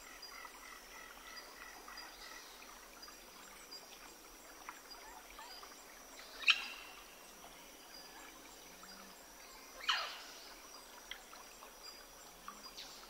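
Faint outdoor ambience with birds calling; two louder calls sweep downward in pitch, about six and a half and ten seconds in.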